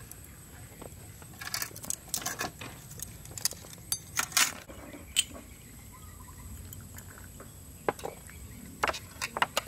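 Irregular clinks and knocks of kitchen utensils and dishes, a few at a time with short gaps between them.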